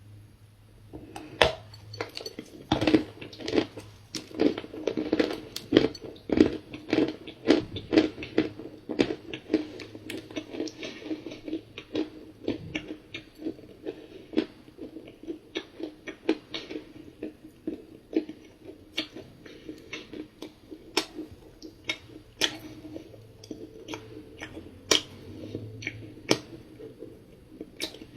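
Close-up chewing of a dry, crumbly cookie: a bite about a second in, then rapid crunching that slows and thins out towards the end.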